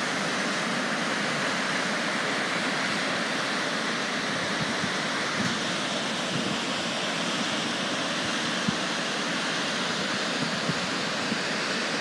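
Steady rushing of waterfalls pouring into a rocky canyon pool where streams meet.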